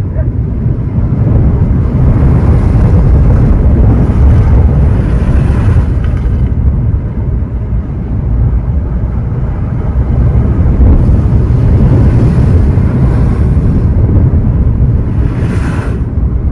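Ocean surf breaking and washing on the shore, swelling twice, about two seconds in and again about ten seconds in, over a steady low rumble of wind on the microphone.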